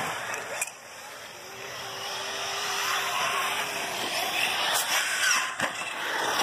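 Radio-controlled off-road cars running on a dirt track: motor whine and tyre noise, with rising whines as they accelerate later on. The sound drops away sharply for a moment about half a second in.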